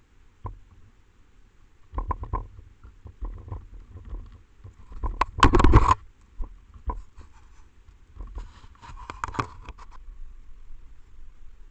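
Handling noise on a trail camera's own microphone as an animal, seemingly a genet, paws and shoves the camera: a run of knocks and scrapes, with the loudest jolt about five and a half seconds in as the camera is knocked askew, then a crackling rustle around nine seconds.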